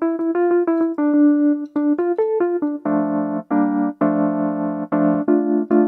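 Casio AiX keyboard's 60s electric piano tone played: a quick run of single notes, then from about three seconds in, full chords struck and held.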